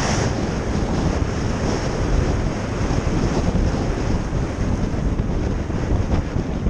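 Wind buffeting the microphone of a camera mounted on a moving motorcycle: a steady, heavy rush.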